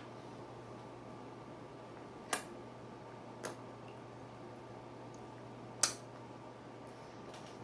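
Three short sharp clicks of carrot being eaten, spaced unevenly about a second to two seconds apart, the first and last loudest, over a faint steady hum.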